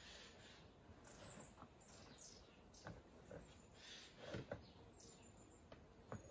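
Quiet hand-handling of yeast dough in a plastic bowl: soft squishing as the dough is kneaded and a piece pinched off, with a few light knocks against the bowl, the loudest about four and a half seconds in.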